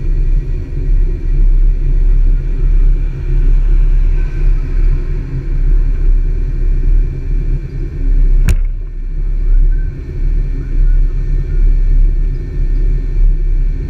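Low, unsteady rumble of a towed jetski trailer rolling along a road, mixed with wind buffeting on the mounted camera's microphone. One sharp click about eight and a half seconds in.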